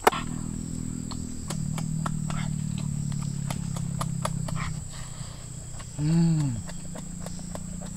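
A man humming "mmm" through a full mouth while eating egg, with a long low steady hum for most of the first five seconds. Wet chewing and lip-smacking clicks run throughout. About six seconds in, he makes a short "mmm" that rises and falls in pitch.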